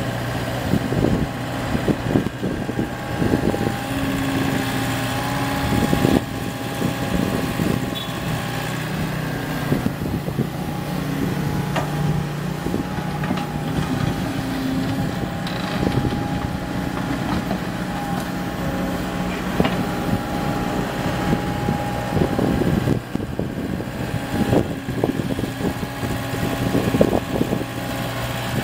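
Komatsu PC75UU compact excavator's diesel engine running under hydraulic load, its pitch shifting now and then as the boom and bucket work. Scattered knocks and scrapes come from the bucket digging soil and dumping it into a dump truck bed.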